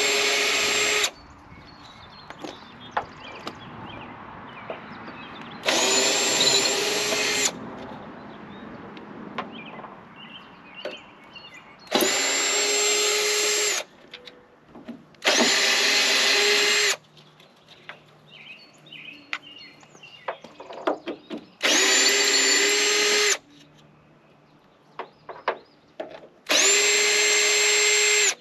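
Power drill run in six short bursts of one and a half to two seconds each, its motor whine starting and stopping abruptly, with light clicks and clatter of handling between the bursts.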